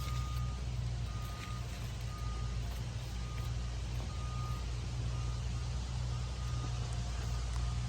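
A vehicle's reversing alarm beeping about once a second, each a short single high tone, over a steady low engine rumble.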